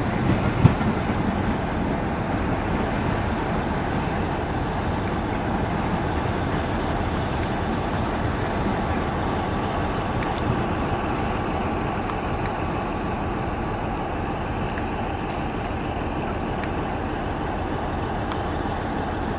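Train at a railway station running with a steady rumble, with a few knocks at the start and a brief high squeak about halfway.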